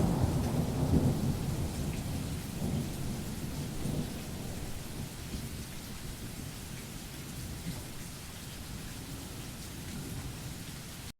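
Rain falling steadily with a low rumble of thunder that slowly dies away over several seconds; the sound cuts off abruptly near the end.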